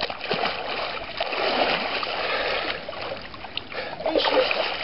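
Water splashing and sloshing in an ice hole as a man dunks himself to the shoulders and comes back up. The splashing is densest in the first three seconds, with another short splash about four seconds in.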